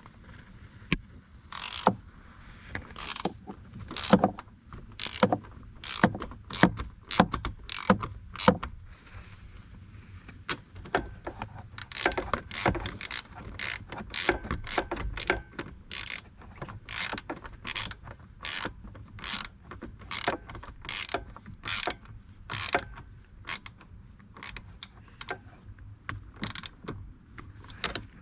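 Ratchet wrench clicking in short runs as 8mm bolts on the steering-column lock are turned down by hand.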